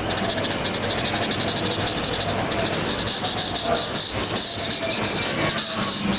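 Soft graphite pencil scratching on drawing paper in rapid back-and-forth shading strokes, with a brief pause about two and a half seconds in.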